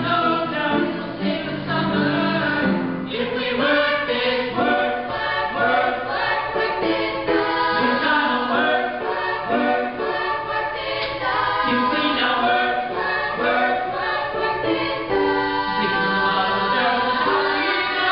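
A mixed group of young men and women singing together, accompanied on an upright piano.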